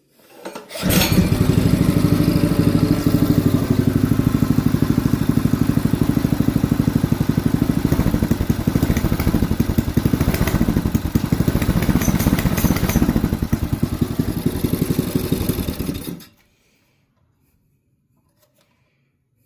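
A 224cc single-cylinder ATV engine starts about a second in and runs with a steady, rapid exhaust beat through a Honda Grom exhaust for about 15 seconds, then cuts off suddenly. The running echoes in an enclosed basement.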